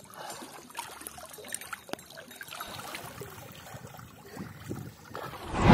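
Shallow river water sloshing and splashing as people wade and move through it, with a few small knocks scattered through. Near the end a loud rushing whoosh swells in.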